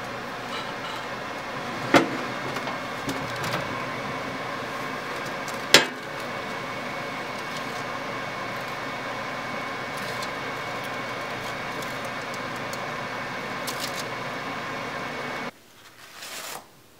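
Electric oven running with a steady hum, broken by two sharp knocks about two and six seconds in. The hum cuts off near the end, followed by a brief rustle of a plastic bag.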